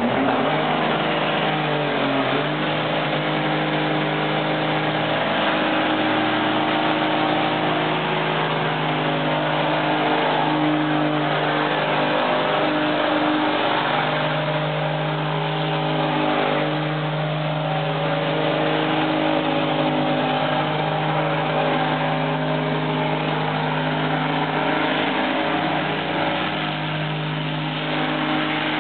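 Race trucks' turbodiesel engines revving high during burnouts as the rear tyres spin and smoke. The engine note holds steady for long stretches, dipping briefly a few times.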